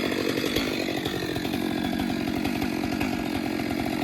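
Chainsaw running steadily without a break, cutting into a standing tree during felling.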